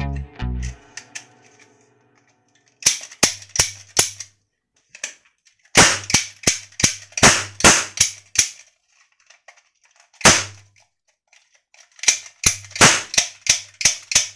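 Toy rifle firing in rapid bursts of sharp snapping shots: a short burst, a longer burst, a single shot, then another long burst, with a low hum under each burst.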